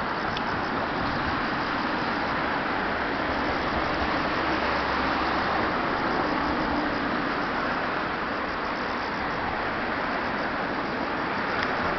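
Steady rushing of a river swollen by typhoon rain, an even unbroken roar of water.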